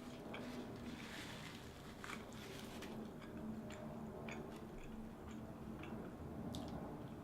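Close-miked chewing and biting of a sub sandwich with lettuce: soft mouth sounds with scattered small crisp clicks, over a faint steady low hum.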